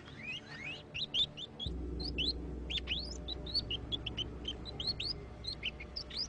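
Dense high-pitched chirping, many short calls a second, over background music whose low drone comes in about a second and a half in.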